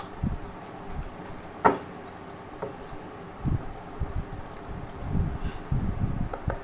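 A deck of tarot cards being shuffled by hand: soft rustles and taps of the cards, with one sharp click a little under two seconds in and a denser run of taps near the end.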